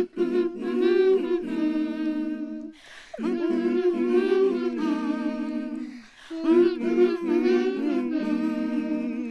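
A group of women humming a tune together in three long held phrases, with short breaks about three and six seconds in.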